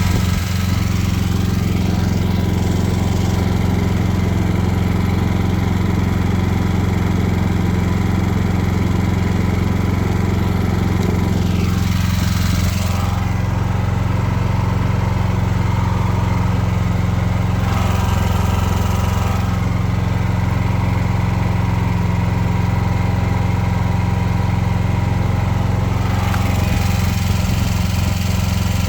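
Predator 9500 Super Quiet generator engine running steadily, its carbon monoxide shutdown sensor jumped out so it keeps running. Its note shifts slightly a couple of times.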